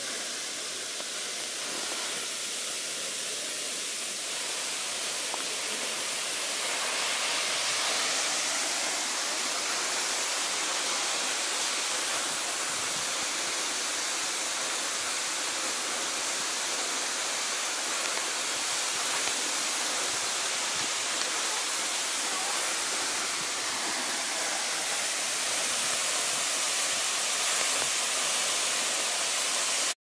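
Tall waterfall, Bambarakanda Falls, pouring down a rock face into its pool: a steady rush of falling water that grows a little louder about seven seconds in.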